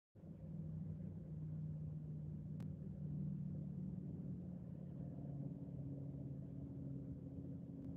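Low, steady vehicle engine hum heard inside a car's cabin, its pitch stepping up slightly about five seconds in.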